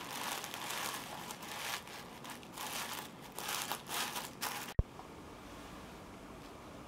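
Thin white wrapping sheet crinkling and rustling in uneven bursts as it is folded around a small resin piece. The rustling stops abruptly with one sharp click nearly five seconds in, leaving a faint steady hiss.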